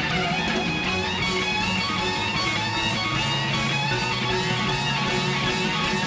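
A live rock band playing, with a lead electric guitar playing wavering, bending lines over rhythm guitars, bass and drums.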